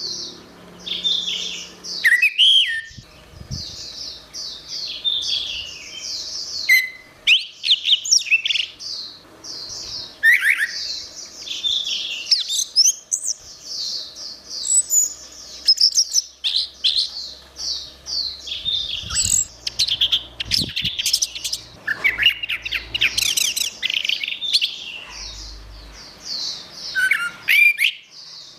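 Orange-headed thrush singing a long, varied song of rapid chirps, whistles and trills, with barely a pause.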